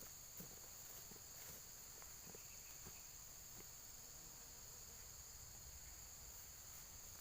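Near silence: a faint, steady high-pitched insect drone, with a few soft ticks.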